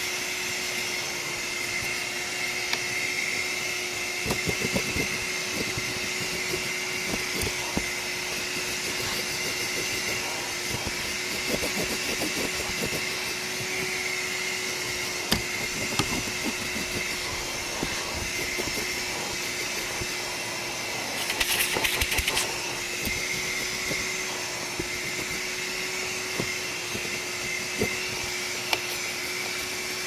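Small handheld vacuum cleaner running steadily with a constant hum and whine while its crevice nozzle works over car floor carpet, with scattered light taps and knocks. About two-thirds of the way in there is a brief loud rattle lasting about a second.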